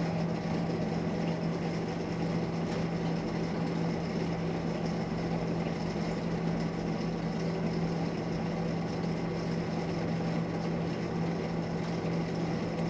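A steady low drone with one constant low tone, like a small motor or fan running.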